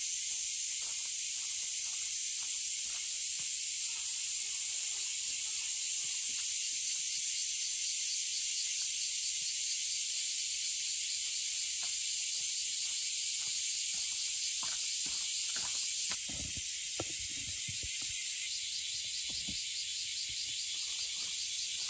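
A chorus of cicadas making a steady, high-pitched buzz, with part of the buzz dropping out about 16 seconds in and again two seconds later. Under it, faint irregular clicks and smacks of a cat eating wet food close by.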